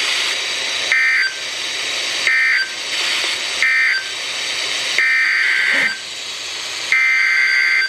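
Emergency Alert System SAME digital data bursts over NOAA Weather Radio: harsh, warbling two-tone screeches over radio hiss. First come three short end-of-message bursts, marking the close of the thunderstorm warning. After a pause come two longer header bursts, which open the next alert.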